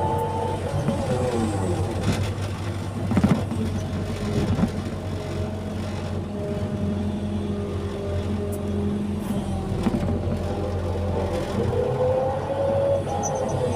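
Hydraulic excavator working soil: its diesel engine runs steadily under load while a hydraulic whine glides up and down in pitch as the machine moves. Two short knocks come a few seconds in.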